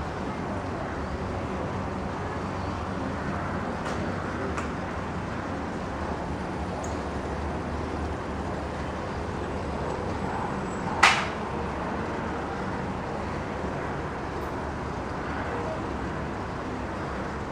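Steady outdoor hum of distant road traffic. One short, sharp, high click stands out about eleven seconds in.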